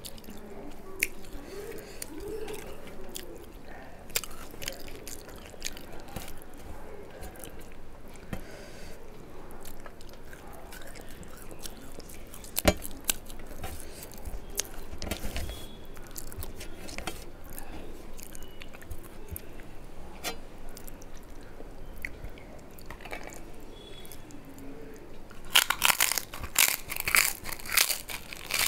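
Close-up chewing and wet mouth sounds, with fingers working rice on a metal plate and scattered small clicks. About 25 seconds in, something crisp is bitten and crunched loudly, again and again.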